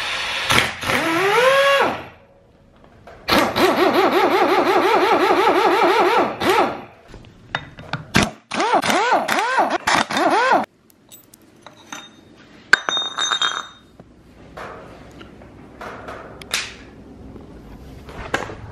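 Air impact wrench running in three bursts, undoing a bolt on the engine: a short spin-up, then a hammering run of about three seconds and another of about two seconds. Softer clicks of parts being handled follow, with one sharp ringing metal clink about two seconds after the last burst.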